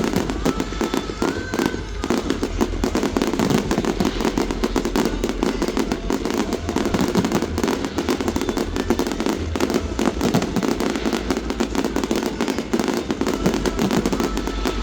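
Aerial fireworks going off in a dense, continuous barrage of rapid bangs and crackling, with no let-up.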